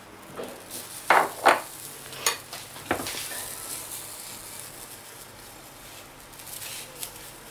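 Oat-bran pancake batter sizzling faintly in a frying pan. In the first three seconds a metal spoon scrapes and taps against the glass bowl and the pan about four times as the batter is spooned in and spread.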